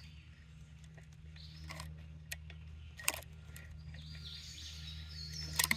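Chainsaw chain clicking as it is pulled by hand along the guide bar through a Timberline chain sharpener: a few separate light clicks, the loudest about three seconds in and two close together near the end, over a steady low hum.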